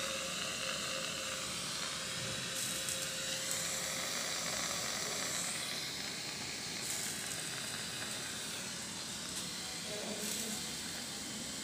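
A steady hiss at an even level, with no breaks or rhythm.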